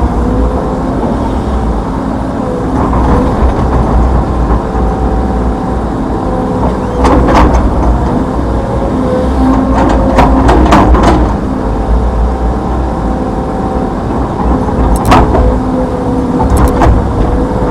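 Hitachi Zaxis 210F excavator's four-cylinder turbodiesel running steadily with a low drone, broken by sharp metallic knocks a few times, a quick cluster of them about ten seconds in.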